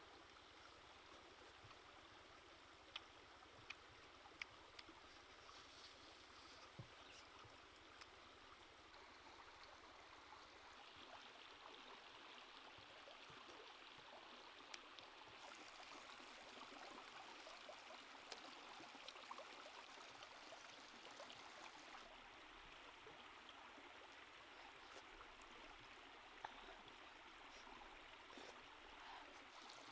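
Faint, steady running water of a shallow stream, with a few faint clicks scattered through it.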